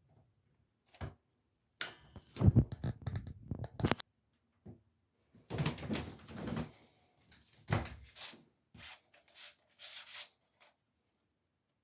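Plastic cable trunking being handled and fitted by hand: a run of irregular clicks, knocks and scraping, loudest about two to four seconds in, with further clusters of clicks and rubbing later on.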